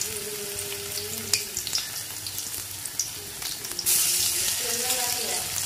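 Cabbage-and-mushroom pakoda batter deep-frying in hot oil in a kadai: a steady sizzle with scattered pops, growing louder about four seconds in.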